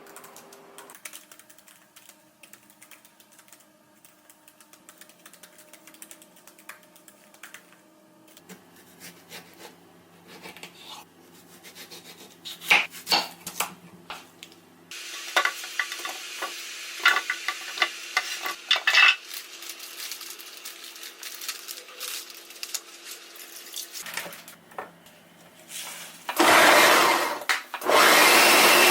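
Dishes and cutlery clinking and scraping, growing busier after about ten seconds. A loud steady whooshing noise starts near the end, breaks off briefly and resumes.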